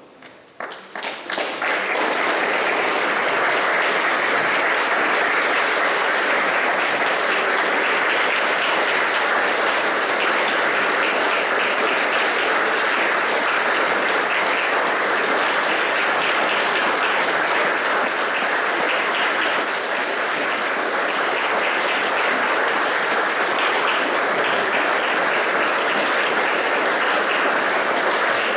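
Audience applauding: a few first claps that swell within about two seconds into steady, sustained applause.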